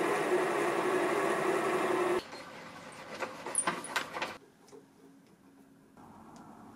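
A twist drill boring into an aluminium rod spinning in a metal lathe: a steady, loud cutting and running noise with a low hum that stops sharply about two seconds in. A few light clicks follow, then it goes quiet.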